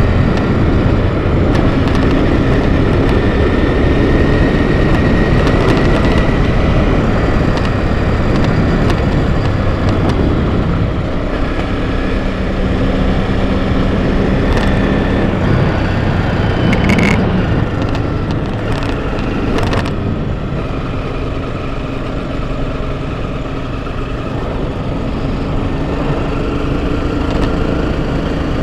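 Enduro motorcycle engine running while riding a dirt trail, its pitch shifting with the throttle, with a few sharp knocks about two-thirds of the way through.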